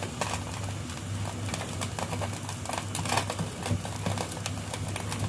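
Silicone spatula stirring boiling broth in a pan: a run of irregular small clicks and taps over a steady low hum.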